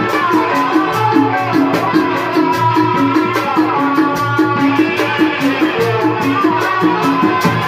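Live tanji band music: a quick, steady percussion beat under a bending melodic line.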